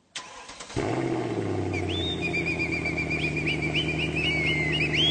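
Opening of a music track: a steady low bass drone comes in just under a second in, with high warbling, whistle-like trills and glides running over it.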